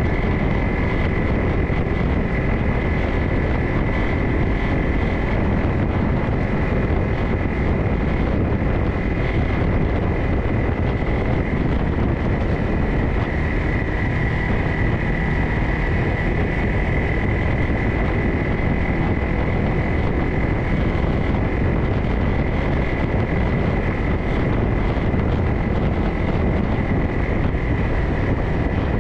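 Off-road vehicle's engine running steadily while riding a dirt trail, with a steady high whine over the engine and wind on the microphone.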